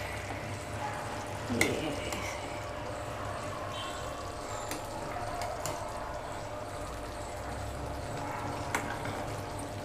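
A long steel spoon stirring cooked, thick rice and black-chickpea tahri in a stainless-steel pot, with a few light clinks and scrapes of metal on metal over a steady hiss.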